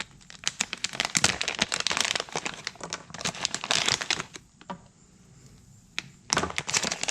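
Plastic packaging crinkling and crackling as a box of door handle lights is unpacked by hand, in irregular rustles with a short lull a little after the middle.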